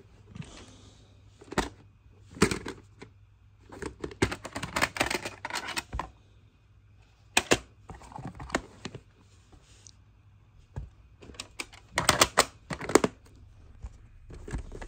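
Plastic VHS clamshell cases being handled, slid and set down against one another, giving irregular clusters of clicks and clattering knocks.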